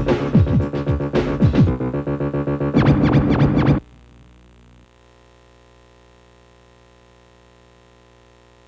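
Title-sequence music with repeated falling pitch swoops over a pulsing beat, which stops abruptly about four seconds in. A faint steady hum follows.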